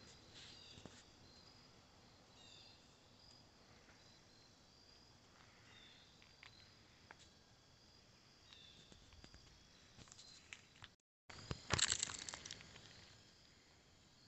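Quiet outdoor ambience with faint, scattered high chirps. After a brief cut near the end comes a loud burst of crackly rustling and crunching, lasting about a second and a half.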